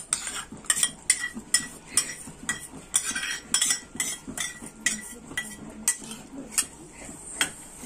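Metal spoon clinking repeatedly against a stainless steel bowl, about two sharp, ringing taps a second, as thick fresh cream is knocked off into the pan of curry.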